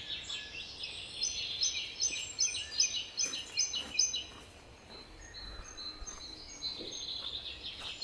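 Garden songbirds singing: a run of repeated high chirps, about three a second, for a few seconds, then a rapid high trill near the end over faint outdoor background noise.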